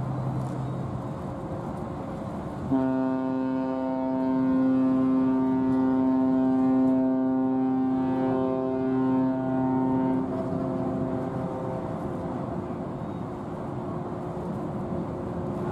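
The ship's whistle of the new car ferry Kitakami sounding one long blast as the ship leaves its berth. The blast starts suddenly about three seconds in, holds a steady pitch, and fades away around ten seconds in.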